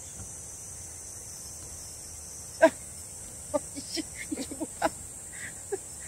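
Steady high-pitched drone of summer insects. A sharp knock comes about halfway through, followed by a quick run of shorter knocks and clicks.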